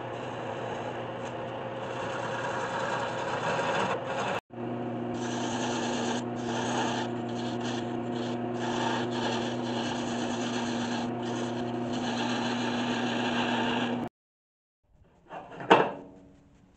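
Wood lathe running while a turning tool cuts a spinning walnut blank: a steady scraping hiss of the cut over a steady hum. It breaks off briefly about four seconds in and stops about fourteen seconds in, and one sharp knock follows near the end.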